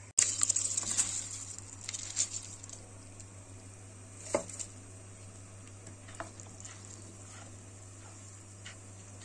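A sudden loud sizzling hiss as washed rice goes into a pot of boiling water and butter, fading over about two seconds. A few light clicks of a spoon against the pot follow, the sharpest about four seconds in.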